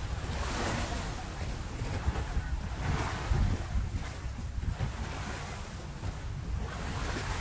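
Wind buffeting the microphone in a steady low rumble, with small sea waves washing against a rocky shore in swells that rise and fade every few seconds.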